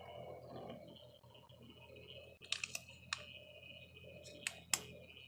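Small motor of a craft spinner running with a faint steady whine and hum as it turns a paint-covered battery pack. A few sharp clicks come about halfway through and again near the end.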